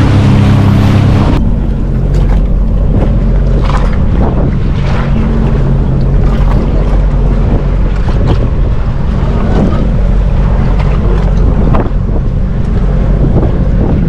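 Sea-Doo jet ski engine running under way, with wind on the microphone and scattered splashes of choppy water. The high hiss drops away about a second and a half in.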